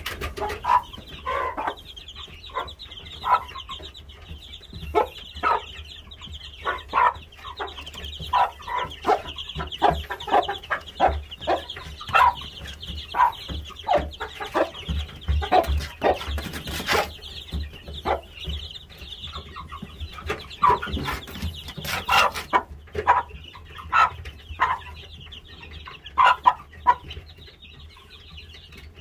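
Game chickens clucking, with short calls coming irregularly several times a second, over a steady high hiss. A couple of louder knocks come around the middle.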